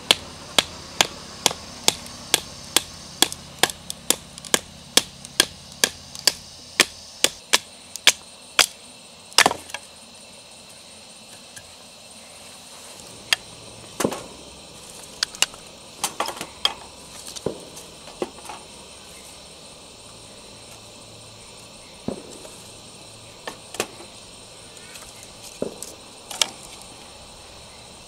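Splitting a stick of firewood into kindling: a rapid, evenly spaced run of sharp wooden strikes, about two and a half a second, for roughly the first ten seconds. After that come scattered wooden knocks and clatters as the split sticks are laid in a stainless-steel fire pit.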